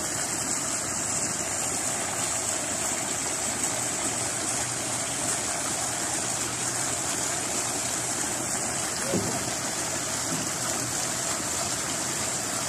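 Steady rush of water spilling into a koi pond along the foot of a rock wall.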